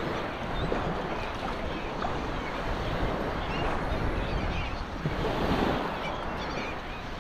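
Small waves washing and lapping close by, with wind buffeting the microphone; faint seabird calls come through now and then.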